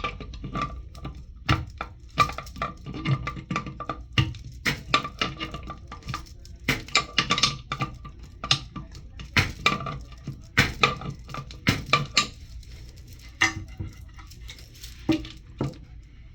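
Irregular clicks, knocks and clinks of plastic toilet-tank fittings being handled and tightened by hand, about one to three sharp taps a second, with a faint ringing between them.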